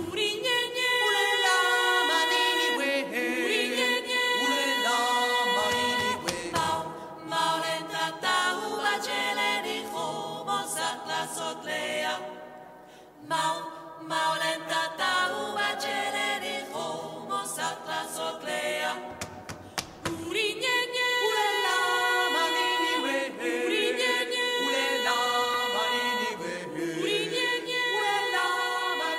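Choral music: a group of voices singing a cappella in a chant-like style, with a few sharp percussive hits and a brief quieter stretch near the middle.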